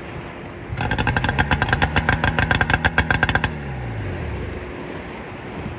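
A small engine running briefly with a rapid, even firing pulse, then cut off about three and a half seconds in and spinning down with falling pitch.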